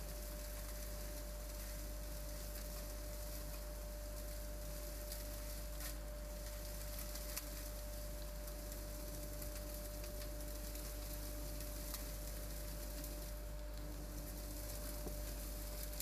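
Vacuum with a wide corrugated hose running steadily while sucking up hay: a constant whine over an even rush of air, with a few faint ticks as bits go up the hose.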